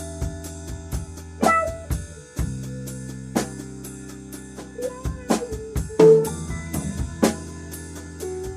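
Instrumental background music: a drum beat over sustained low chords.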